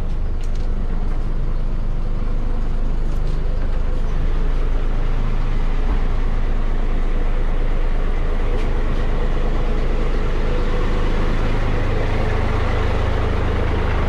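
Passenger boat's engine running steadily, a continuous low drone heard from on board.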